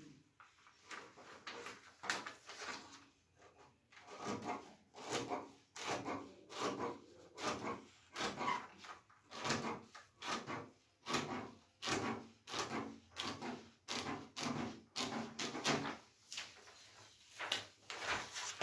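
Scissors cutting through a large sheet of pattern paper in a long run of snips, about one to two a second, with the paper rustling as it is shifted across the table.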